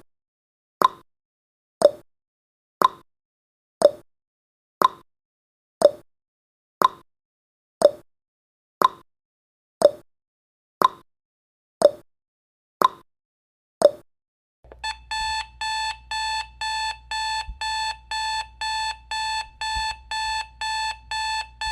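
Countdown timer sound effect: a clock ticking once a second, then, as the count reaches zero about 15 seconds in, an alarm-clock beeping starts, a rapid repeated electronic beep at about two to three beeps a second.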